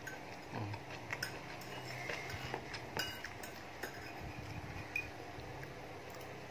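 A metal fork tapping and scraping on a plate of fried noodles while someone eats, with a few sharp clinks and faint chewing.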